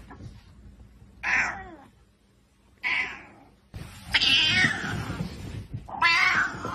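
Grey tabby cat yowling angrily: four drawn-out meows a second or so apart, the third the longest and loudest.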